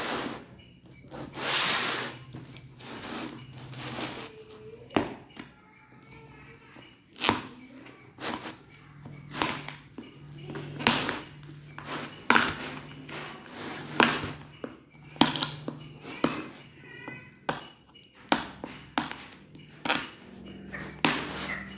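Irregular sharp clicks and knocks, roughly one a second, of a small metal hand tool and hands working on the hard plastic base of a Hero Splendor motorcycle seat.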